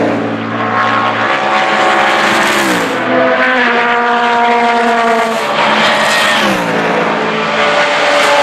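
Open-cockpit sports prototype race cars passing one after another at racing speed, each engine note dropping sharply in pitch as the car goes by, about three seconds apart.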